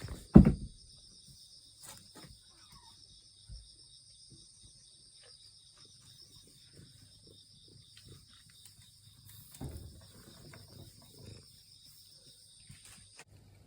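Insects chirping steadily in high, fast-pulsing notes, stopping suddenly near the end. A loud low thump comes about half a second in, with faint knocks and rustling later on, most around ten seconds in.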